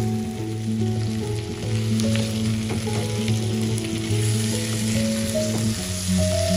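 Pork pieces sizzling and frying in an open pan, with the scrape of a wooden spatula stirring them, over background music.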